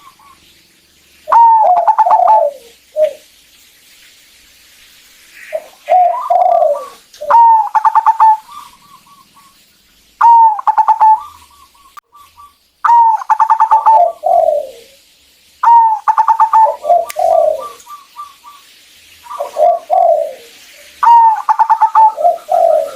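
Zebra dove (perkutut) cooing in repeated phrases, one every two to three seconds: each phrase is a quick stuttering run of notes that drops into lower rolling coos.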